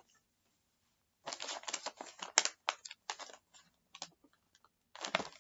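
Cardboard snack box being opened by hand. About a second in there are two seconds of rapid, sharp rustling and scraping of packaging, then a few light taps, and another short burst near the end.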